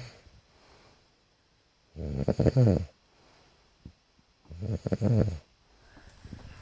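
Snoring from someone asleep: two loud snores about two and a half seconds apart, each lasting about a second.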